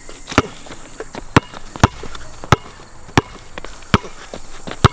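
A basketball being dribbled on a hard outdoor court: about seven sharp bounces at uneven intervals as the player works the ball.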